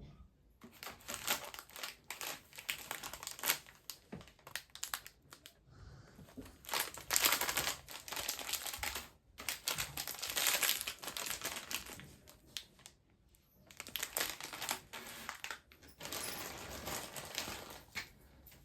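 Candy wrappers crinkling and rustling as they are handled, in irregular stretches of a few seconds with short pauses between.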